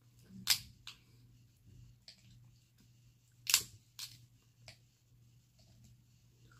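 Cooked Dungeness crab shell snapped and cracked apart by hand: two sharp cracks about three seconds apart, with lighter clicks and snaps of shell around them.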